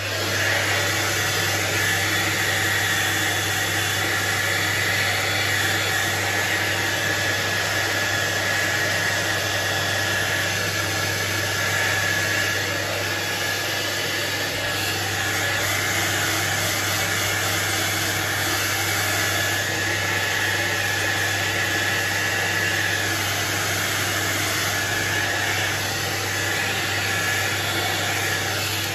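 Hand-held hair dryer running steadily, a rush of air with a faint high whine, blowing water out from between the scales of a freshly washed straight razor. It switches on at the start and cuts off at the end.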